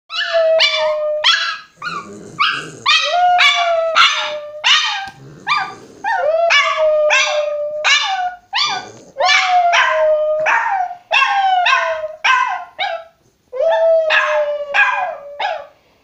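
A Jack Russell–Chihuahua cross howling in repeated drawn-out notes, set off by a police siren, while a Chihuahua barks and yips alongside in quick sharp calls.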